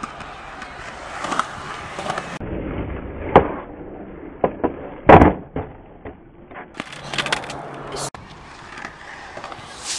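Skateboard wheels rolling over concrete, then a string of sharp clacks and slaps as the board pops and lands. The loudest impact comes about five seconds in.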